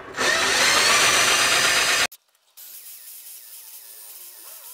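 Cordless drill clamped in a lathe's tool post, its motor running for about two seconds with a faint rising whine, then cut off abruptly; a faint steady background follows.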